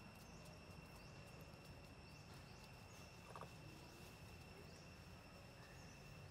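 Near silence: faint outdoor ambience with a steady high-pitched whine and a few faint chirps, and one brief faint sound about three seconds in.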